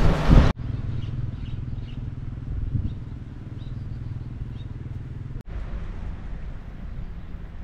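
Outdoor background sound: a steady low rumble with a few faint, short bird-like chirps. It opens with about half a second of loud wind noise on the microphone that cuts off abruptly, and the sound drops out for an instant about two-thirds of the way through.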